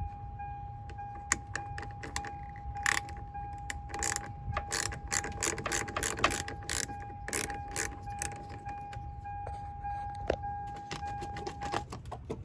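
Irregular clicking and rattling of keys and small metal and plastic parts being handled at a pickup truck's ignition cylinder, thickest in the middle, over a steady high-pitched tone that stops shortly before the end.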